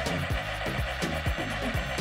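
Background music with a steady electronic beat.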